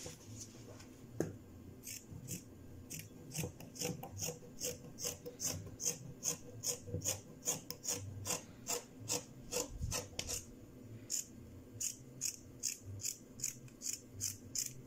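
Sewing scissors cutting through folded stretch fabric, a run of short snips about two to three a second, stopping just before the end.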